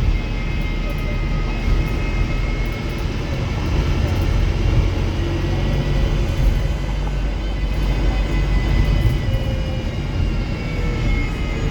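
Wrightbus StreetDeck HEV double-decker bus on the move, its Mercedes-Benz OM934 diesel engine and Voith-geared drivetrain giving a loud low rumble. Several steady high whines sit over the rumble, slowly falling in pitch, with one bending near the end.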